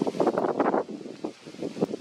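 Strong wind buffeting the microphone in irregular, choppy gusts, easing off a little after about a second and picking up again near the end.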